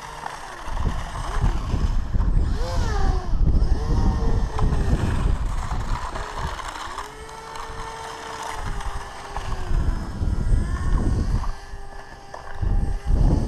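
StevensAero WaterBoard RC airboat's brushless electric motor and propeller whining, the pitch repeatedly rising and falling as the throttle is worked, over a low rumble. The whine eases off briefly a few times, most clearly late on, then comes back loud just before the end.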